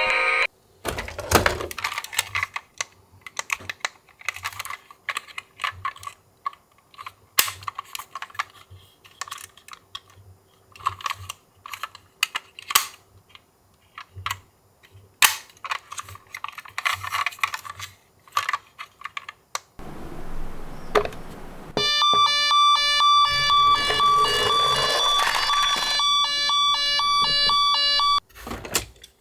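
Irregular plastic clicks and clatter of toy vehicles being handled, then about 22 seconds in a toy's electronic beeping tune of on-off tones plays for about six seconds.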